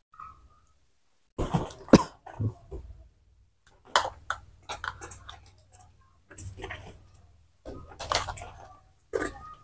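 A baby monkey eating porridge: short bouts of wet smacking and clicking, about six of them, the loudest about two seconds in.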